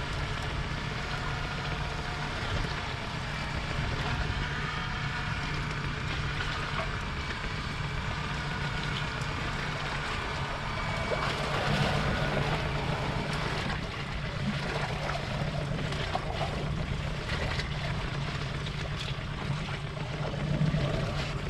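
A boat's motor running steadily, with wind and water noise.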